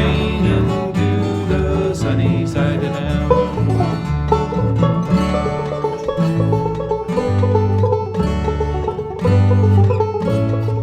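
Instrumental break in a country-style song: plucked string instruments picking quick notes over a bass line that steps from note to note.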